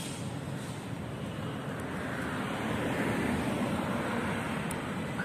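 Street traffic: a car drives past on the road with engine and tyre noise, swelling about halfway through.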